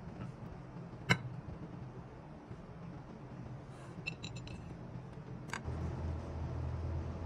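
Metal spoon clinking against a glass serving dish as soft knafeh is scooped out: one sharp clink about a second in, a few small ringing clinks around four seconds, and another clink near five and a half seconds. A low steady hum comes in near the end.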